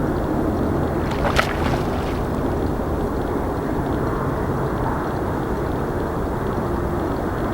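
Steady low rumble of an Airbus A321's jet engines at a distance. There is one brief, sharp, high-pitched sound just over a second in.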